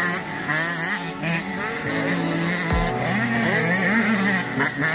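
Several 85 cc two-stroke motocross bikes racing, their engines revving up and down with overlapping pitches as they accelerate and shift.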